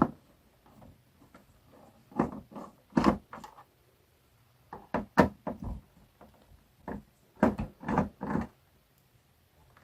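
Parts of an LED TV being dismantled and handled by hand: a series of irregular knocks and clunks, a few in quick pairs, with quiet gaps between.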